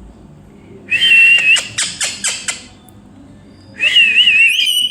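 Pet parrot whistling: a high whistled phrase about a second in, broken by short clicky notes, then a second, wavering whistle near the end.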